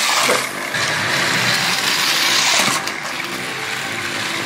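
Several battery-powered TrackMaster toy trains running on plastic track: a steady whir of small electric motors mixed with the rattle of plastic wheels and cars on the rails.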